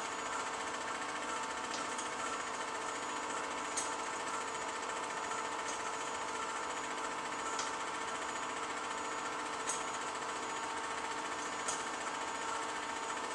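Film projector running steadily, its motor and shutter mechanism making an even rapid clatter with a steady hum, and a light click about every two seconds.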